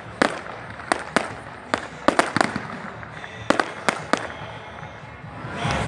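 Fireworks exploding overhead: a dozen or so sharp bangs at uneven intervals, several in quick succession about two seconds in, with a swelling rush of noise near the end.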